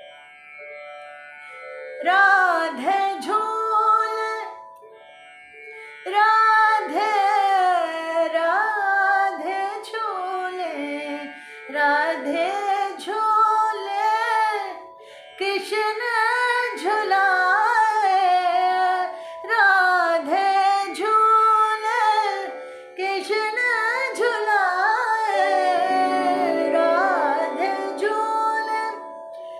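A woman sings long, ornamented phrases of a semi-classical jhoola song, bending and gliding between notes, with short breaks between phrases. A steady drone is held beneath the voice.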